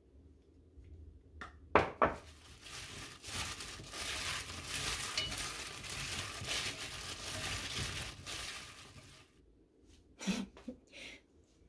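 Kitchen handling sounds while preparing food in a pot: two sharp knocks about two seconds in, then about seven seconds of continuous rustling noise, ending with a few light knocks near the end.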